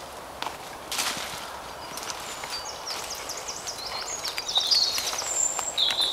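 A small songbird singing quick runs of high notes and trills from about two and a half seconds in, over footsteps and rustling on leaf litter along a woodland path.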